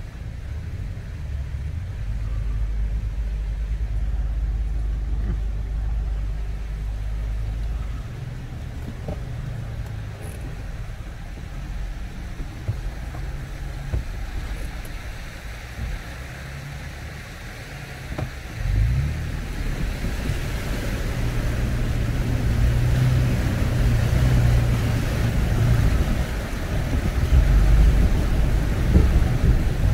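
Toyota FJ Cruiser's V6 engine running at low speed, with a short rev about two-thirds through. After that a rising rush of water noise builds against the vehicle as it drives into a deep water crossing.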